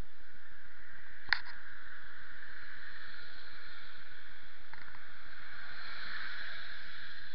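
Steady hiss of rain and wet-street noise through an Eken A8 action camera's small microphone, with one sharp click about a second in and the hiss swelling around six seconds.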